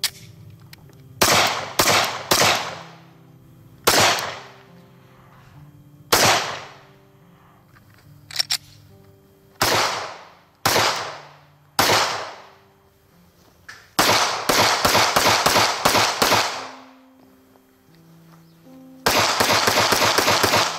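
Glock 43 9mm pistol firing: sharp individual shots at irregular spacing, each trailing off in a short echo, then two quick strings of rapid shots, one near the middle and one at the end. Quiet background music plays underneath.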